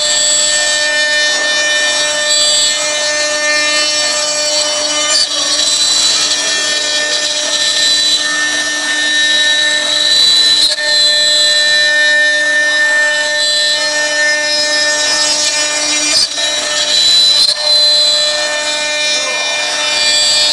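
CNC router spindle running with a steady high whine while its bit carves a gourd turned on the machine's rotary fourth axis, with the rasp of wood being cut under it.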